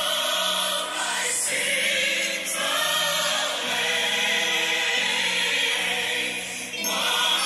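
Choir singing gospel music in long held notes, the phrases breaking briefly about a second in, at about two and a half seconds, and shortly before the end.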